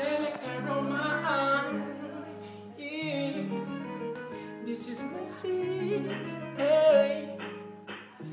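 A voice singing a wordless, wavering melody with vibrato over a backing track of held chords, whose bass notes step to a new pitch about once a second.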